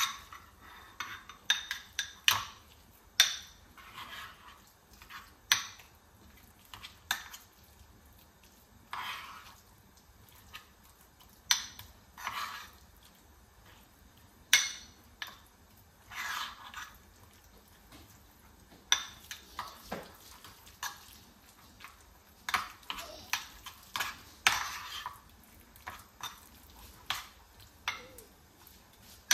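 A fork stirring a thick spinach and cream cheese mixture in a bowl: irregular scrapes and sharp clicks of the fork against the bowl, in uneven strokes with short pauses.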